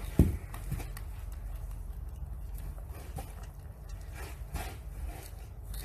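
Baby macaque eating a piece of fruit: small wet chewing and lip-smacking clicks, with a low thump just after the start.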